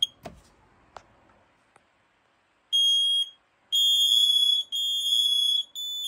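First Alert SMICO100-AC smoke and carbon monoxide alarm being tested: a faint click as its test button is pressed, then after a pause of a couple of seconds its piezo horn gives one short high-pitched beep. It then sounds a run of long beeps, each about a second, with brief gaps between them.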